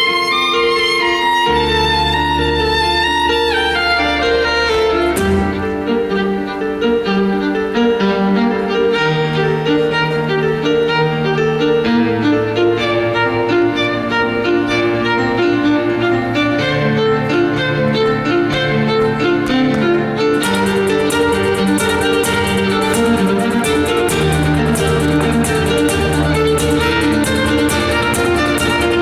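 Violin melody played over a backing track with sustained bass notes. It opens on a held, wavering high note and a falling run, then moves into quicker phrases. About twenty seconds in, a busier beat with fast high ticks like hi-hats joins.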